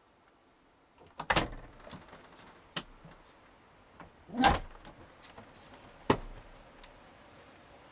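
Van door being handled: a handful of sharp clunks and knocks, the loudest and longest about four and a half seconds in.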